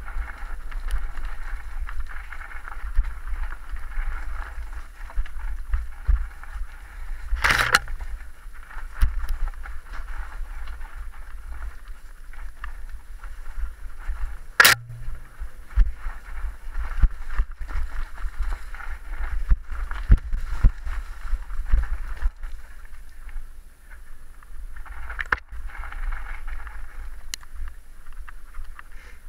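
A mountain bike riding down a rough dirt forest trail: a steady rumble and rattle from the tyres and bike over the ground, with wind on the microphone. Two sharp knocks, about seven and fourteen seconds in, stand out.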